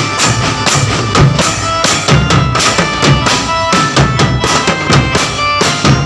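Music with a steady, driving drum beat of bass drum and snare under held melody notes.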